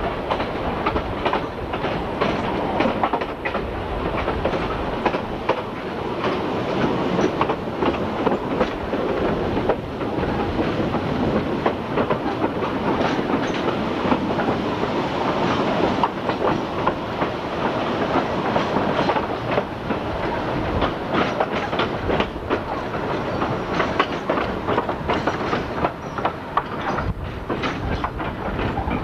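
Narrow-gauge railway carriage running along the track, its wheels clattering over the rail joints in a steady, continuous rattle, heard from an open carriage window.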